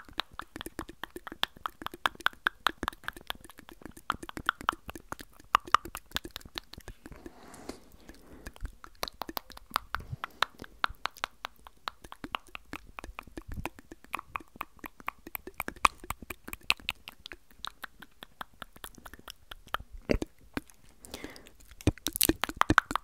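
Fast, intense ASMR mouth sounds close to the microphone: a dense run of wet tongue clicks and lip pops, several a second.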